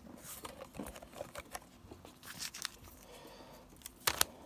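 Faint rustling and small taps of foil booster packs and card packaging being handled on a table, with two sharp clicks a little after four seconds in.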